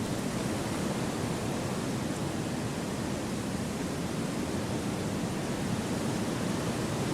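Steady wind through forest trees: an even, unbroken rushing with no distinct gusts or other sounds.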